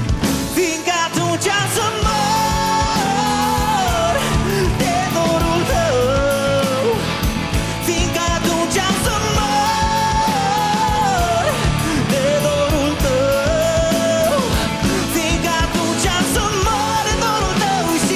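Male lead singer with a live rock band playing a rock ballad: drums and cymbals keep a steady beat while he holds long, bending sung notes.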